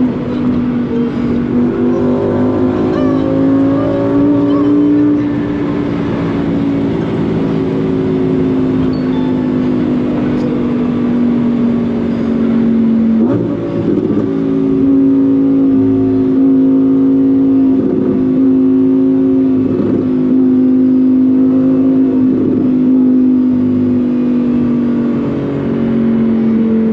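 Lamborghini Huracán Performante Spyder's V10 engine running under way, holding a steady drone that sags slowly in pitch. About halfway through the pitch jumps up sharply at a gear change, then settles again, with a few short bumps along the way.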